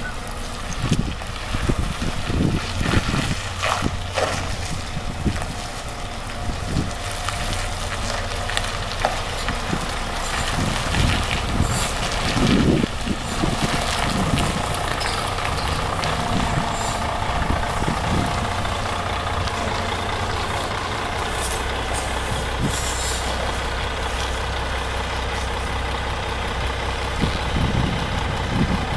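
Karosa B731 city bus's diesel engine running as the bus manoeuvres slowly, with hissing from its air brakes. The engine settles to a steadier, even running in the last third.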